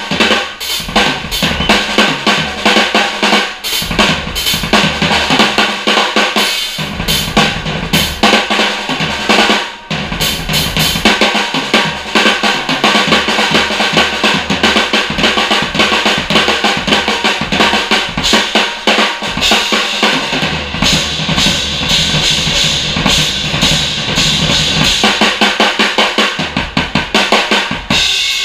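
Acoustic drum kit played as a solo: dense snare and tom strokes over kick drum, with cymbals crashing. The cymbal wash grows brighter in the second half, and near the end the strokes come as a fast, even roll.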